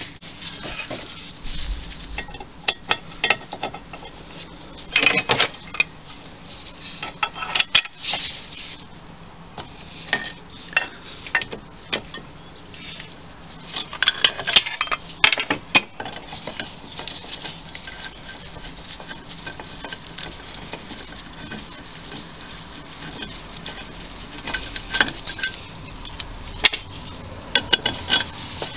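Metal lathe parts and hand tools clinking, tapping and scraping in irregular clusters as a component is worked loose and taken off by hand.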